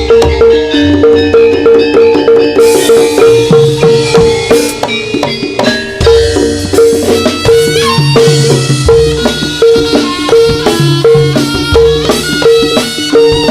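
Javanese turonggo (jaranan horse-dance) music played live on a gamelan-style ensemble: mallet-struck metallophones and drums. One note is struck on a steady beat about twice a second under a busy melodic line.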